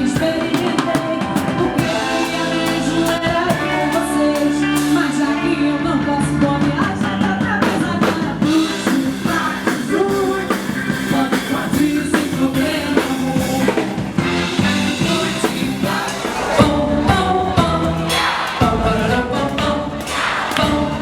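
A band playing music, with singing over a steady drum beat.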